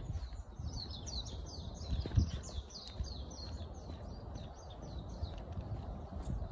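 A small bird calling a quick run of short, falling chirps, several a second, over low rumble from walking with the phone, with a single thump about two seconds in.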